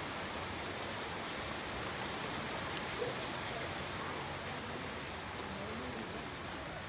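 Pouring rain falling steadily, with a few sharp ticks of drops.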